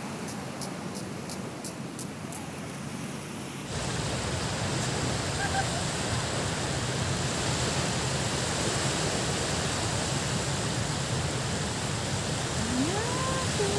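Steady rushing noise of wind and water at the shoreline. It is quieter with faint, rapid ticking for the first few seconds, then jumps abruptly louder about four seconds in and stays even.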